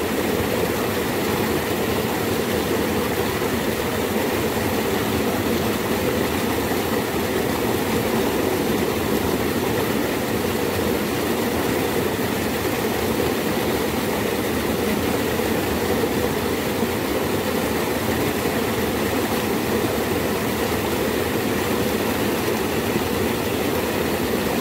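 Steady rush of fast-flowing water in a narrow rice-field irrigation channel.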